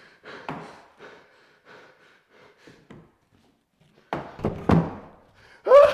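A few faint knocks, then a short cluster of thuds about four seconds in: bare feet on a wooden floor. A voice cuts in at the very end.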